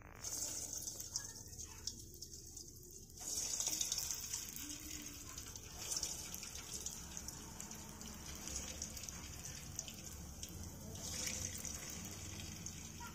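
Balls of urad dal bonda batter deep-frying in hot oil in an aluminium kadai: a steady sizzling hiss with fine crackling, swelling louder about three seconds in and again around six and eleven seconds as more batter goes into the oil.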